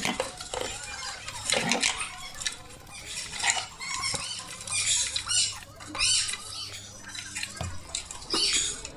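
Cleaning out an old home theatre speaker cabinet: quick, repeated scratchy scrubbing strokes on the enclosure, clearing out dirt left by rats, with runs of fast strokes about halfway through and near the end.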